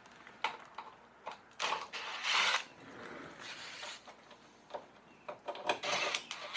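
Cordless power tool running in several short bursts, backing out the 13 mm bolts that hold a Jeep Wrangler JK's rock sliders to the body, with a few clicks of the tool on the bolts between runs.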